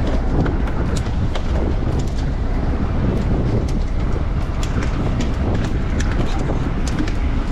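Wind buffeting the microphone on a boat in a rough sea: a steady low rumble with frequent light clicks and knocks through it.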